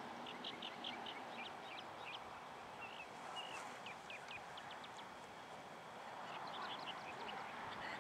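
Small birds chirping in short, quick high calls, coming in several brief runs, over a faint steady background hiss.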